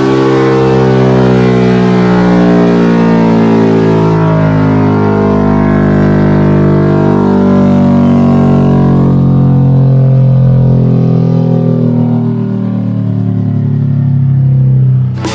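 Bored-up Yamaha Aerox scooter's single-cylinder four-stroke engine (62.5 mm piston) running hard on a chassis dynamometer during a dyno run. Its pitch stays nearly level, wavering slowly.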